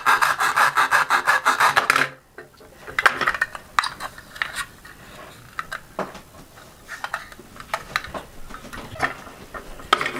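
Velcro ripping apart with a fast rasping crackle as a toy plastic vegetable is pulled in two with a toy knife; it stops suddenly about two seconds in. Light plastic clicks and knocks follow as the toy pieces are handled.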